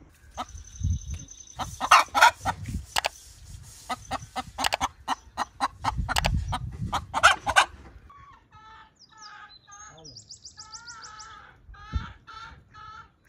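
Chickens clucking: a run of loud, sharp calls in the first half, then softer, evenly repeated clucks, with a quick high trill partway through.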